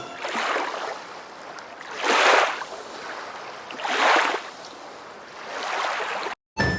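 Water washing in regular swells, about one surge every two seconds, like small waves lapping. Near the end it cuts to silence and then chiming music.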